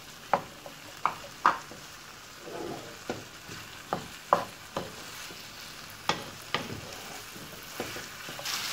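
Wooden spatula stirring chopped onion and capsicum in a nonstick frying pan, knocking and scraping against the pan at irregular intervals over a faint sizzle of frying sauce.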